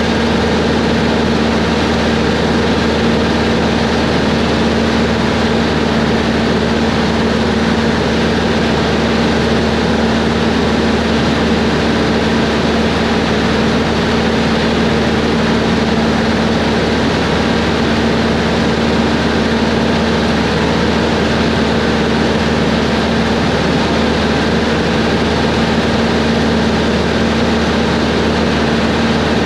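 Cessna 140 light aircraft in cruise: the piston engine and propeller make a steady, unchanging drone.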